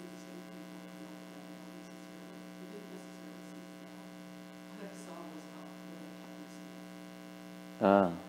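Steady electrical mains hum, with faint, distant speech under it. Just before the end comes one short, loud vocal sound close to the microphone.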